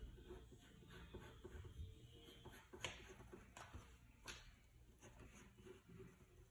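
Faint scratching of a graphite pencil drawing on paper, with a few light clicks about halfway through.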